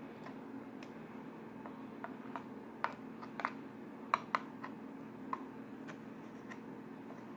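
Slime being handled, giving small irregular clicks and pops, a few louder ones near the middle, over a steady low background hum.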